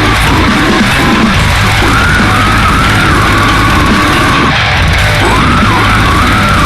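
Loud, dense heavy metal music, with a high wavering melody line on top.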